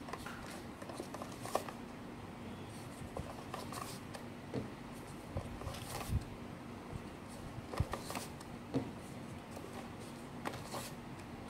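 Foam darts being pushed one at a time into a clear plastic Nerf-style clip magazine: small plastic clicks and scrapes at uneven intervals. A faint steady hum runs underneath.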